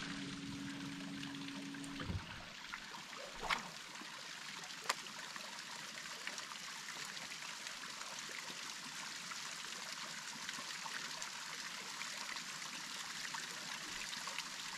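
Steady trickling of running water, an even hiss with no break. A low steady hum runs under it at first and stops about two seconds in, and there are a couple of faint knocks.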